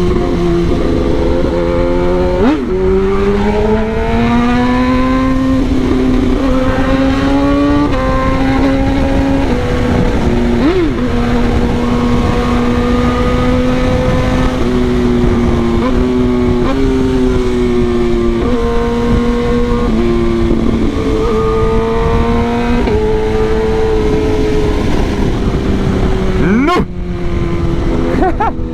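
Kawasaki ZX-10R inline-four sportbike engine pulling hard through the gears while riding. The engine note climbs and then drops at each upshift, several times over, against a steady rush of wind noise.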